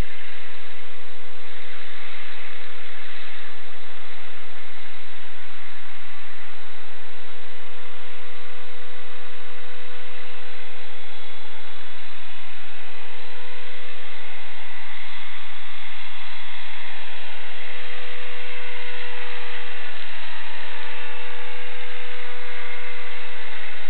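Electric 450-size RC helicopter running: the steady whine of its electric motor and gear drive, with a constant tone and many overtones. In the second half some of the pitches drift slowly up and down.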